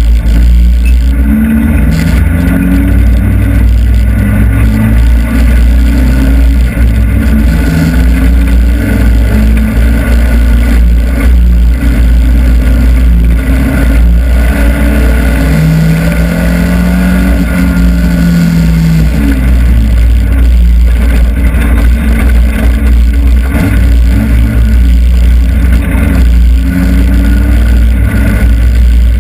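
Hobby stock race car's engine heard from inside the cockpit, running hard at racing speed. Its pitch rises and falls as the driver lifts off and gets back on the throttle through the turns, over a heavy low rumble, loud enough to nearly overload the recording.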